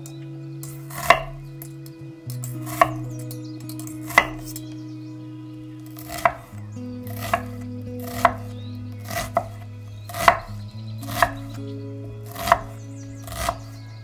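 Knife chopping an onion on an end-grain wooden cutting board: sharp knocks of the blade striking the wood, about one a second and unevenly spaced.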